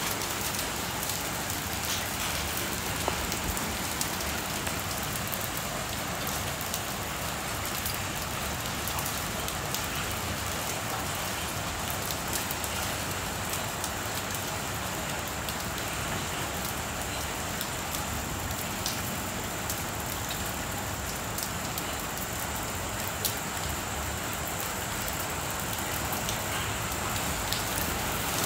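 Rain falling steadily on a wet concrete driveway and pooled water, with scattered sharp ticks of drops striking close by.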